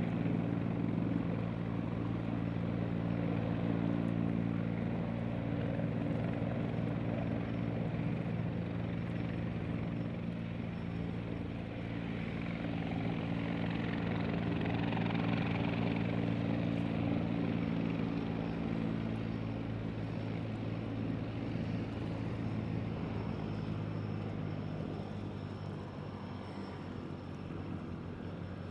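De Havilland DHC-3 Otter floatplane's engine and propeller running steadily, swelling a little in the middle and easing off near the end.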